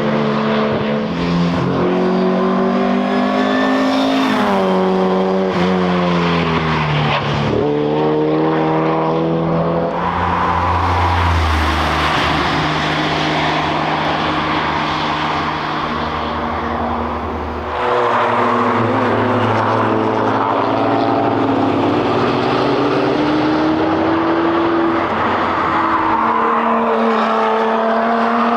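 Cars driving past at track speed, their engines rising and falling in pitch through gear changes, with a broad rushing tyre and road noise through the middle.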